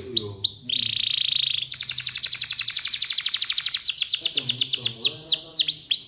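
Domestic canary singing a long, continuous song. It opens with a few swooping notes and a buzzy note about a second in, runs into a long rapid trill, and breaks up into swooping downward notes near the end.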